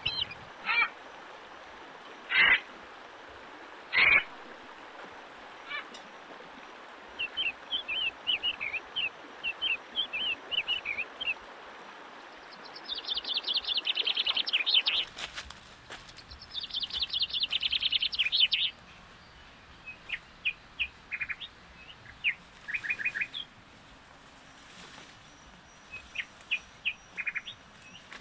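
Wild animal calls, frog- and bird-like: rapid high trills and short chirps, repeating in clusters. Three short, loud bursts come in the first four seconds. A steady hiss of flowing stream water lies under the first half and then drops away.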